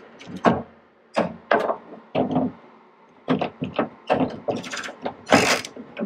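Hand socket ratchet clicking in short bursts, a few strokes at a time with pauses between, as the door handle's mounting bolts are undone.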